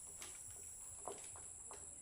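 Steady high-pitched insect chirring, with a few scattered light taps and knocks.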